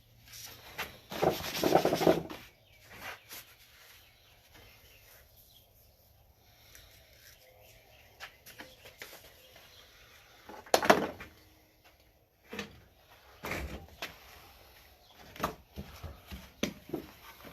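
Workshop handling noises: scattered knocks and rustling as things are picked up and set down. The loudest are a scraping rustle lasting about a second near the start and a sharp knock partway through, with smaller clicks and taps toward the end.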